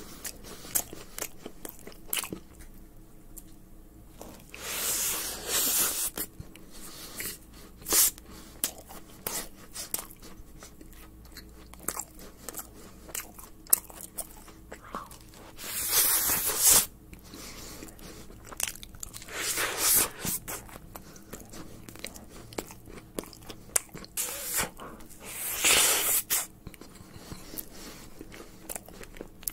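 Close-miked chewing of a giant macaron, soft wet mouth clicks throughout, with louder crunching bites now and then.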